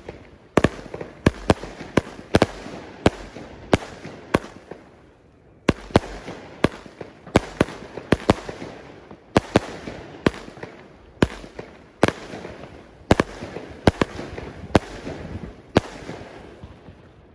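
A WATT Deep Pulse 30-shot, 25 mm consumer firework battery firing: sharp bangs about two a second, with crackling between them. There is a short lull about five seconds in, and the shots stop about a second before the end.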